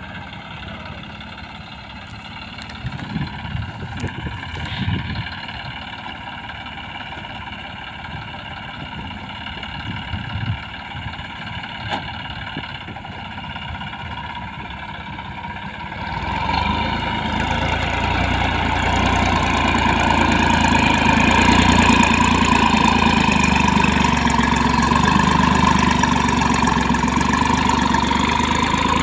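Massey Ferguson 9500 Smart 58 hp tractor's diesel engine running steadily while it pulls a mounted plough through the soil. There are a few bumps about three to five seconds in, and the engine gets clearly louder from about halfway through as the tractor comes close.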